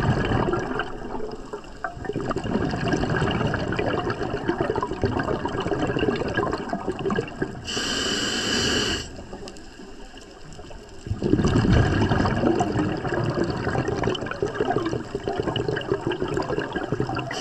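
Scuba diver breathing through a regulator underwater: two long stretches of exhaled bubbles, broken about eight seconds in by one short hissing inhale through the regulator.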